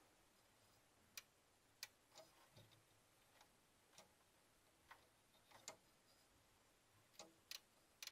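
Faint, irregular small clicks, about a dozen over several seconds, as fingers turn the white plastic reel gears of a Sony DV tape mechanism.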